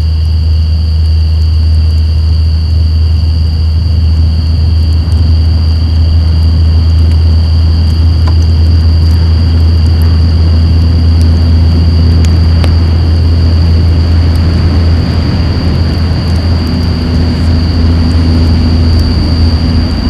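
Semi-trailer truck engine, a loud, deep, steady rumble, over two steady high-pitched insect tones and faint crackles from a wood campfire.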